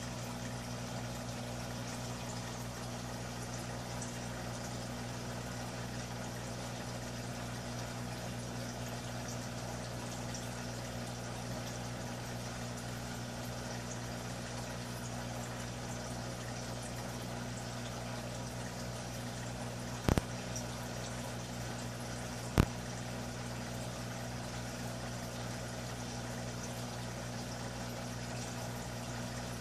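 A steady low hum under an even watery hiss, broken by two sharp clicks about two and a half seconds apart, about two-thirds of the way through.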